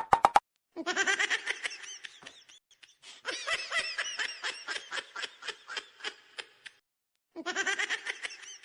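High-pitched laughter in quick repeated pulses, coming in three runs with short pauses between them.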